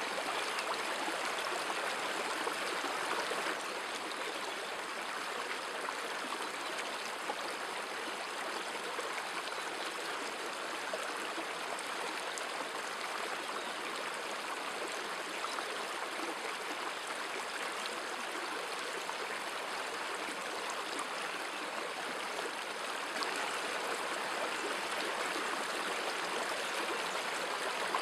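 Steady rushing of a shallow stream flowing over stones, a little quieter a few seconds in and slightly louder again near the end.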